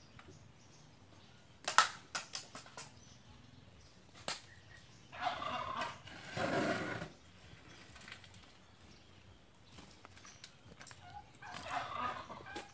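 A shovel working soil around the base of a metal-drum kiln for coconut-shell charcoal: a quick run of sharp clinks about two seconds in, then two rough scraping scoops of about a second each, about five seconds in and near the end.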